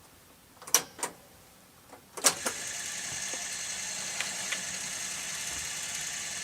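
Rock-Ola 443 jukebox mechanism being switched on for a test: two sharp clicks, then a louder clack about two seconds in, after which the mechanism runs steadily with a high hiss.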